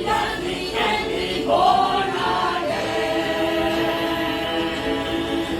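Church choir singing in several parts, holding long notes through the second half.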